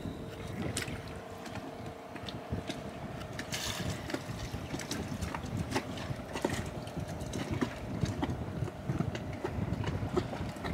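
Water splashing and rushing along a sailboat's hull under way, with wind on the microphone and scattered short clicks and creaks.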